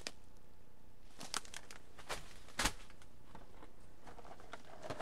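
Food packages being handled: a few brief rustles and light knocks from a plastic bag and boxes, the loudest about two and a half seconds in, over a faint steady hiss.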